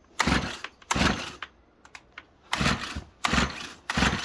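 Recoil starter of a two-stroke brushcutter pulled five times, two quick pulls, then three more after a pause of about a second. Each pull is a short rasping whirr; the choked engine does not fire.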